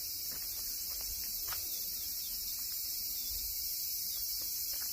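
Steady, high-pitched chorus of summer insects in the forest, with no breaks.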